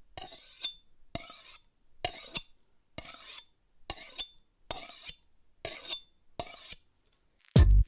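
About eight short scraping strokes in an even rhythm, a little under a second apart, each with a light clink.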